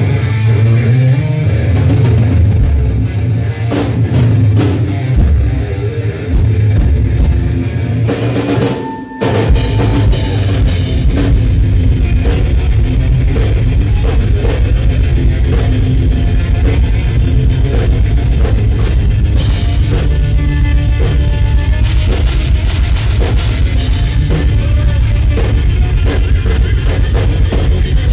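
Live rock band playing loud, with distorted electric guitar to the fore over drums. After a short break about nine seconds in, the drums come in with a fast, steady bass-drum pattern under the guitar.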